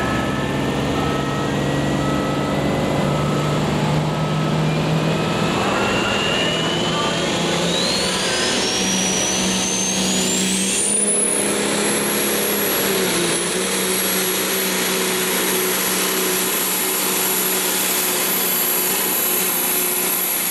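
Hot rod semi truck's turbocharged diesel engine running hard, with a turbocharger whine that climbs steadily for about ten seconds and then holds high and level under a steady low engine note.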